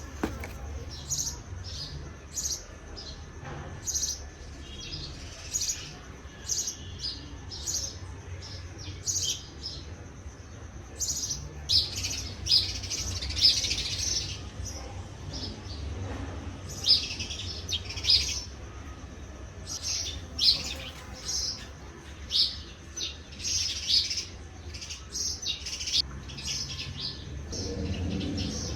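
Small birds chirping, with many short, high chirps repeating over a low steady hum.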